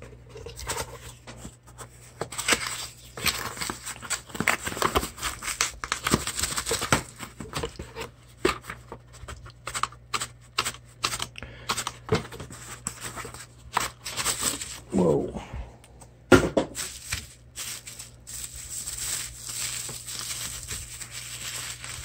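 Plastic bubble wrap being crinkled and torn off a glass jar, with many irregular crackles and sharp clicks of handling.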